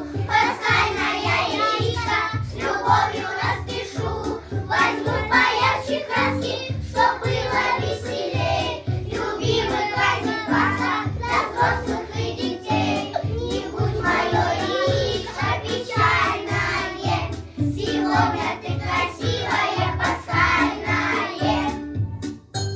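Children singing a song over a backing track with a steady beat; the music breaks off shortly before the end.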